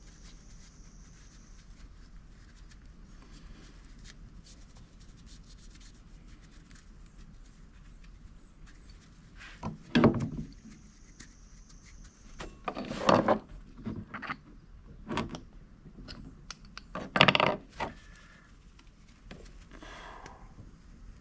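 Intermittent rubbing and scraping handling noises over a faint background, with a few short loud scrapes in the middle.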